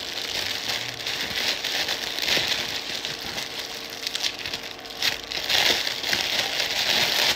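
Clear plastic garment bag crinkling and crackling as fingers handle and pull it open, louder in the last couple of seconds.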